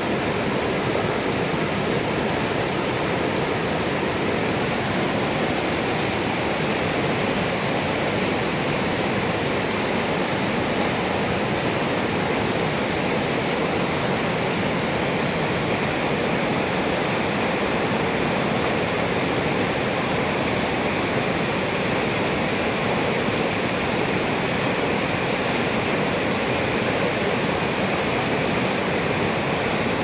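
River in high flow rushing over rocky rapids: a loud, steady rush of white water that does not let up.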